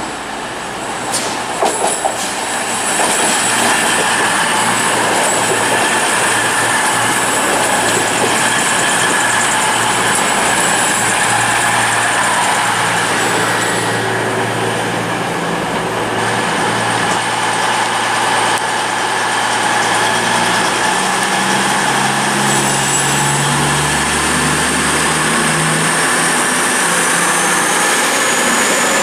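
CrossCountry Voyager diesel-electric multiple unit running into the platform close by: its underfloor diesel engines and wheels on the rails make a steady, loud noise. A thin whine rises in pitch near the end.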